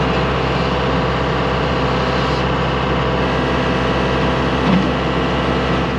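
Loader's engine running steadily, heard from inside its small cab.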